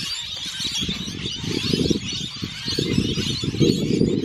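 Strong wind buffeting the microphone in uneven gusts, with a flock of parrots chattering and chirping high above the rumble.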